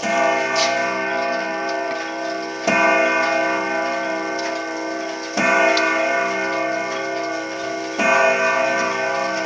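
Ridgeway grandfather clock with an Urgos triple-chime movement striking the hour: four ringing strokes about two and a half seconds apart, each ringing on until the next.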